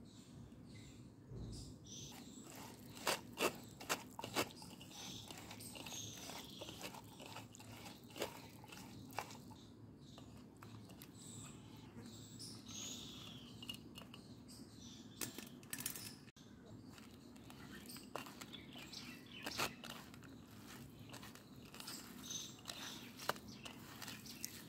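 A hand mixing and mashing onion, chillies and roasted jackfruit seeds with oil on a ceramic plate: soft squishing and crunching, with several sharp clicks scattered through, the loudest group about three to four seconds in.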